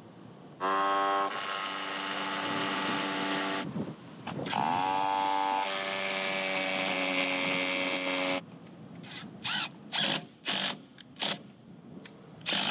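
Power drill running in two long spells of about three seconds each, the second spinning up in pitch as it starts, followed by several short trigger bursts near the end.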